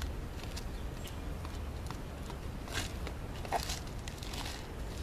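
Footsteps on concrete outdoor steps: a few soft scuffs and taps, mostly in the second half, over a steady low rumble of outdoor air on the microphone.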